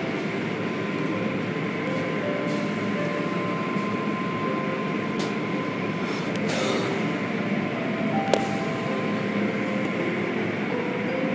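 Automatic tunnel car wash heard from inside the car: a steady rush of water spray and cloth brushes sweeping over the body and windows, with a few sharp knocks, the loudest about eight seconds in.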